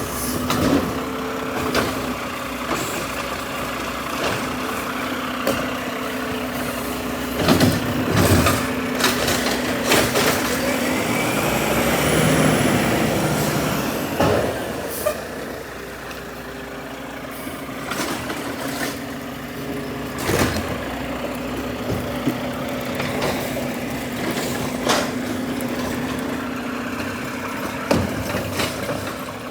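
Heavy truck engine running steadily, with repeated sharp clanks and knocks and a louder hissing spell around the middle.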